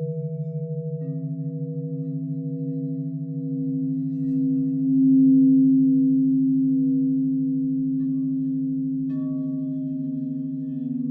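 Several singing bowls ringing together in long sustained, wavering tones. A new tone comes in about a second in and swells loudest around five seconds, and another bowl is struck near the end.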